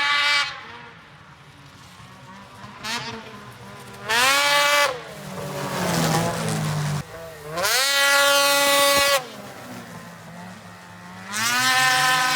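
Ski-Doo 850 two-stroke snowmobile engine through a newly fitted MBRP race can exhaust, idling and revved in several sharp throttle blips, its pitch rising and falling with each. It is loud.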